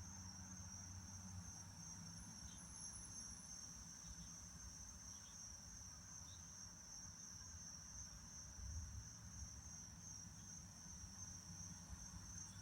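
Crickets trilling: a steady, unbroken high trill, with a few faint short chirps in the first half.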